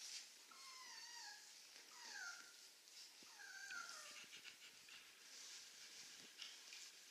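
Czechoslovakian wolfdog puppy, about three weeks old, whimpering faintly: three high, falling whines in the first four seconds, as it struggles to climb back onto the bed to its mother.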